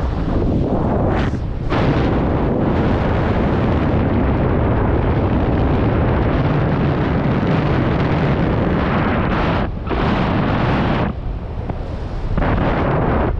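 Heavy wind buffeting a GoPro's microphone, a loud rushing that surges and eases, with brief drops about a second and a half in and near ten seconds.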